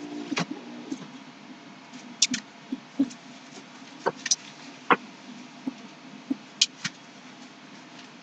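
About a dozen irregular light knocks and clicks of wooden frame parts being handled and set down on a work surface, over a low steady background hum.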